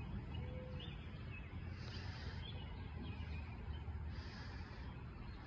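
Outdoor morning ambience: a steady low rumble with a few short bird calls scattered through it.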